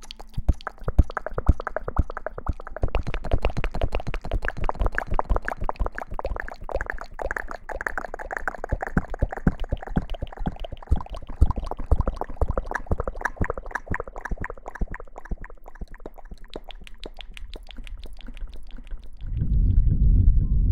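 ASMR hair washing close to the microphone: wet, squishy rubbing and lathering made of dense small crackles. Near the end a louder, deep rushing sound comes in.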